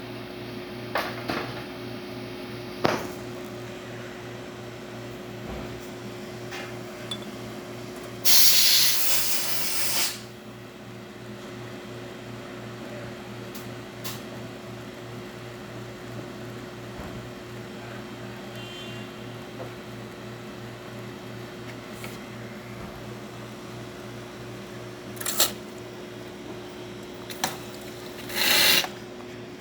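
Lucca M58 espresso machine's pump humming steadily while it pulls a shot. About eight seconds in comes a loud two-second hiss of steam from the wand, with shorter hisses and clicks near the end. The machine is running correctly after a burnt electrical connector under its boiler was replaced.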